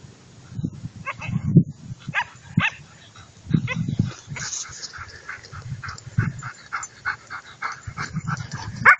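German Shepherd dogs barking and yipping in play, with a quick run of short barks at about three a second through the middle, and dull low thumps underneath.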